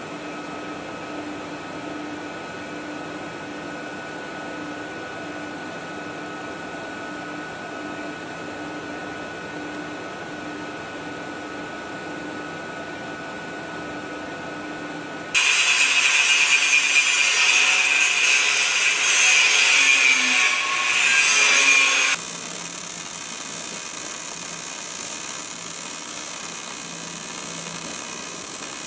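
Metal fabrication shop noise: a steady machine hum with a few held tones, then a harsh, loud power-tool noise that starts suddenly about halfway and stops abruptly about seven seconds later, followed by quieter steady shop noise.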